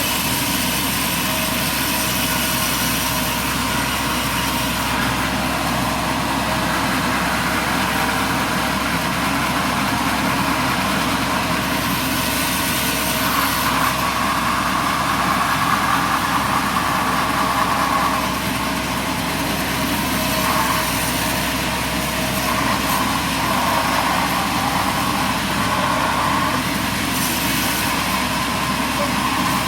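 Heavy machinery running steadily, with a mid-pitched whine that comes and goes in the second half.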